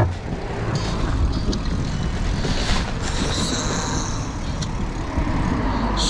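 Steady wind and road noise on a moving bicycle's handlebar-mounted microphone, with traffic on the adjacent road.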